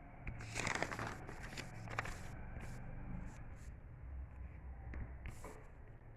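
Faint rustling and light clicks, as of something being handled, in short scattered bursts; no bell is ringing.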